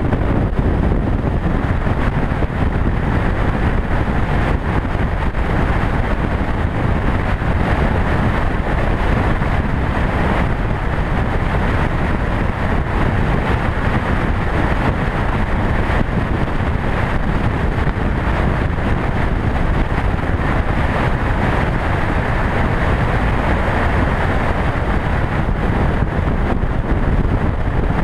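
Steady wind rushing over the microphone of a camera on a motorcycle at highway speed, with the motorcycle's running and road noise underneath.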